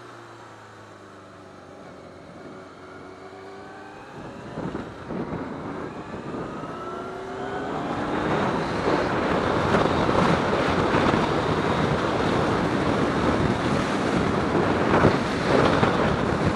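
Motorcycle accelerating out of a roundabout, its engine note rising in pitch and dropping back at each upshift. From about eight seconds in, wind rushing over the microphone grows louder with speed and drowns out the engine.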